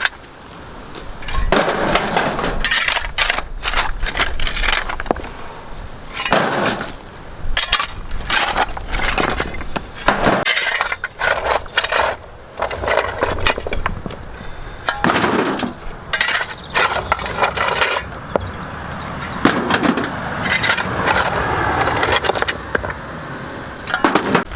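Old concrete footpath being broken up by hand: repeated irregular impacts with cracking, crunching and clinking of concrete rubble.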